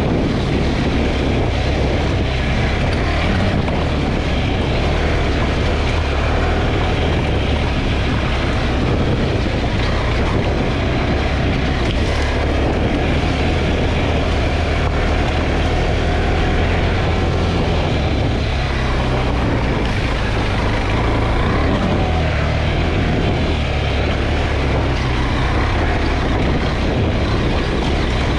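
KTM 390 Adventure's single-cylinder engine running steadily at low trail speed, with the tyres rolling over loose stones.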